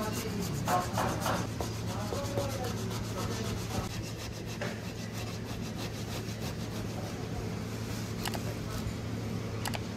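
Potato being grated on a stainless steel box grater: repeated scraping strokes of the potato against the metal teeth, densest in the first second or so, over a steady low hum.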